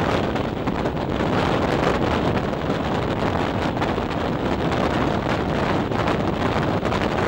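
Wind buffeting a microphone held out of a moving regional train's window, over the steady rumble of the train running on the rails.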